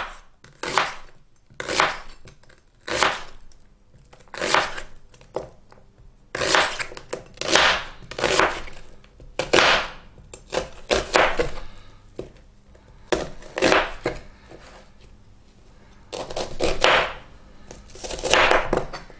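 Chef's knife slicing an onion half into rough strips on a plastic cutting board, each stroke a crisp cut ending in a knock on the board. The strokes come irregularly, about one a second, with a couple of short pauses.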